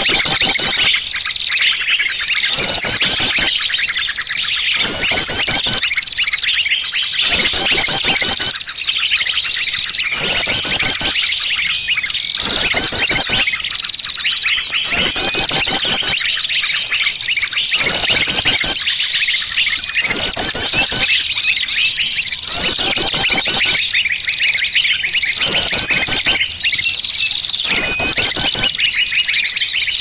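A bird-lure recording for trapping small birds: many small birds' chirps and trills overlap into a noisy chorus. A burst of rapid trills recurs every second or two over a steady high whistle.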